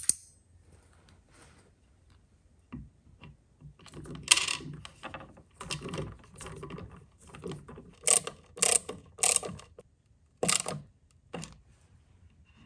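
Cordless drill driving a screw through a round magnet into a laminated particleboard panel, in a series of short trigger bursts, the last four brief and sharp.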